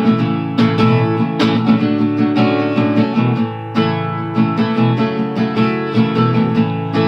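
Acoustic guitar strummed in a steady rhythm, playing a song's instrumental intro without vocals.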